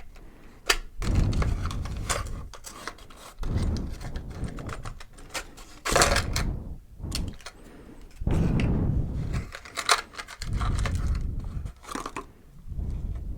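Close-miked hands handling small plastic packaging pieces and a charm chain: scattered sharp clicks and taps with rustling, and several low muffled rumbles of about a second each.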